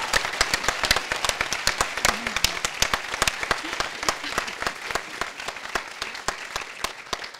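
Audience applauding, a dense patter of many hands clapping that gradually dies away.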